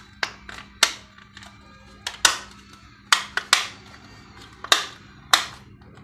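Plastic shell of a set-top box remote control being snapped back together by hand: a dozen or so sharp clicks at uneven intervals as the casing halves latch.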